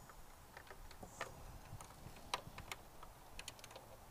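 Faint, irregular metallic clicks and taps from a crow's-foot wrench on a socket extension being worked down into place around an engine, a dozen or so scattered light ticks.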